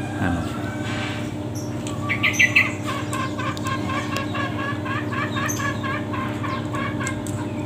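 Caged green junglefowl calling: a short, shrill three-part call about two seconds in, then a run of quick repeated notes for several seconds.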